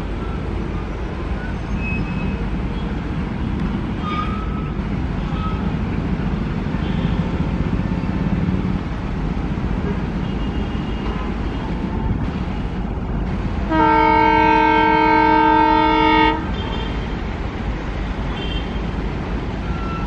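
An ALCO WDM-3D diesel locomotive's engine chugging hard as it approaches with its train. About fourteen seconds in, its horn sounds one steady blast of about two and a half seconds, the loudest sound here.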